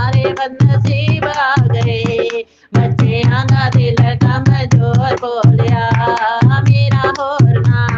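A Punjabi Shiv bhajan: a devotional song sung with a wavering, ornamented melody over a steady drum rhythm. The music breaks off briefly about two and a half seconds in, then resumes.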